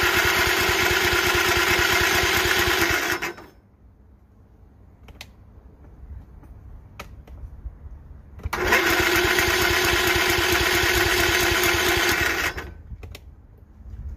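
Electric starter cranking a Kohler Courage 20 hp lawn tractor engine, choke on and boosted by a jump pack, in two cranks of about four seconds each with a pause and a few faint clicks between them. The engine turns over but does not fire, which the owner takes for a possible lack of spark.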